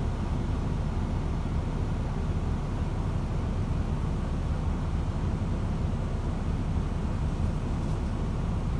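Steady low rumble inside the passenger saloon of a New Routemaster (LT-class) diesel-electric hybrid double-decker bus as it runs, even throughout with no change.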